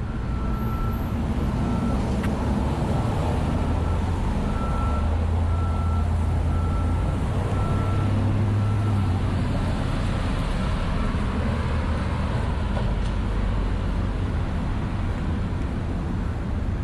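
A heavy vehicle's engine rumbling, with a reversing alarm beeping at a steady rhythm that stops about two-thirds of the way through, over street noise and wind.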